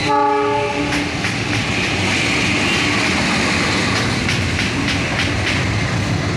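CC 206 diesel-electric locomotive passing on a viaduct: a short horn blast right at the start, then the steady rumble of the locomotive with the clatter of its wheels on the rails.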